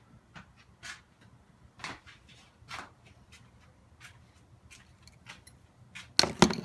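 Scattered light clicks and rustles of small tools and clamp parts being handled on a work surface, with a louder clatter of several sharp knocks near the end.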